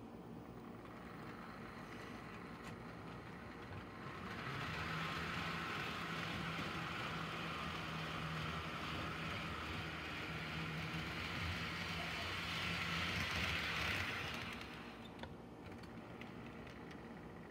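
HO scale model train running on the track: a steady hum from the locomotive's small electric motor with wheel-on-rail rattle. It gets louder about four seconds in as the train passes close, then drops back a few seconds before the end.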